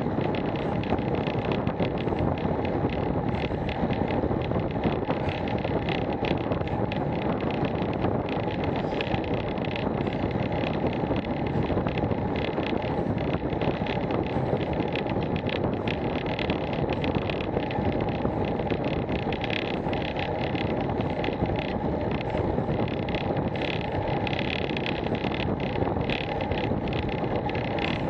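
Steady wind rush over the microphone of a bicycle-mounted action camera, mixed with tyre noise on tarmac, as the bike rides along at about 19 mph.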